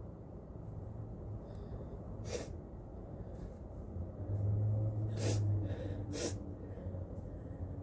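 A person with a head cold sneezing: three short, sharp sneezes, about two, five and six seconds in.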